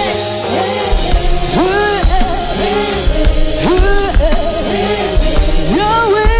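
Worship song: a voice sings a melody in long, arching notes over a band with a steady beat.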